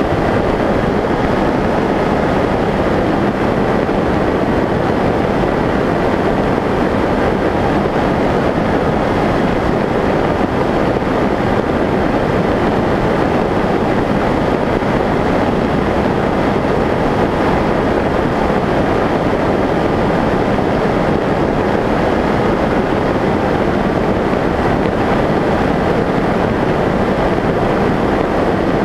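Skyshadow S800 electric flying wing in steady cruise: an even rush of airflow and wind on the microphone mixed with its brushless motor and pusher propeller, with a faint constant whine over it.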